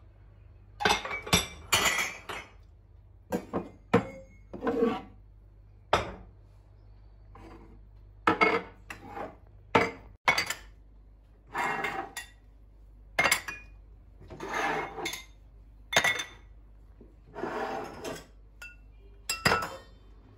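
Dishes and glassware being handled in a kitchen cabinet: a string of separate clinks and knocks as pieces are picked up and set down, with a few longer scraping sounds of items sliding on a shelf.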